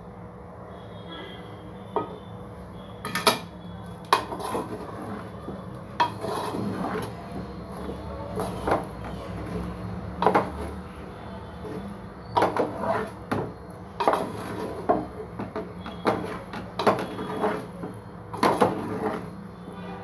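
Wooden spatula knocking and scraping against the side of a cooking pot while stirring cooked rice, with irregular clacks starting about two seconds in.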